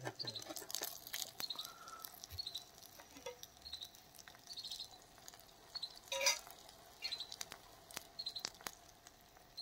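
Faint, irregular clicks and light ticks, with small birds chirping now and then in the background.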